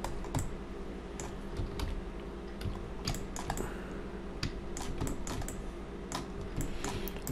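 Computer keyboard keys being pressed: scattered single clicks at an irregular pace, over a low steady hum.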